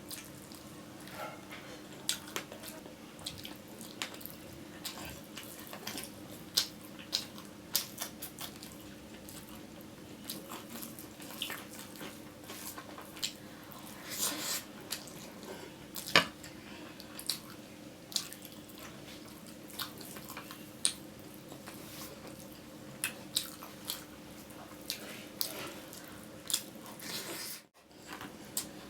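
Close-up eating sounds: wet chewing and mouth smacks with many sharp, irregular clicks, over a steady low hum.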